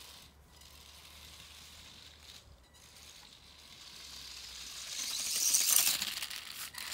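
Small homemade RC car driven by a DC motor running over paving stones, a hiss of motor and wheels that grows louder as it comes close, loudest about five to six seconds in.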